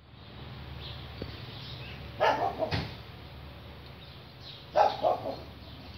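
A dog barking in two short bouts of a few barks each, the first about two seconds in and the second about five seconds in.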